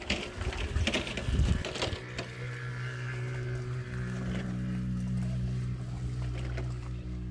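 Scraping and light knocks of hands working wet stone-powder plaster in a plastic basin for the first two seconds. Then a steady low hum sets in, a little louder about four seconds in.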